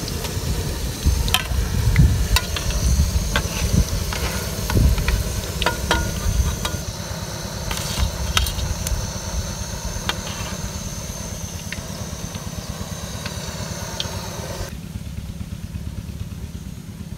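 Pakoras deep-frying in hot oil, sizzling steadily, with scattered sharp clicks from the frying utensils and a steady low rumble underneath. The sizzle drops away near the end.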